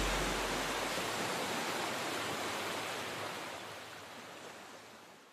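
A steady rushing hiss, like running water or noise, fading out gradually to silence.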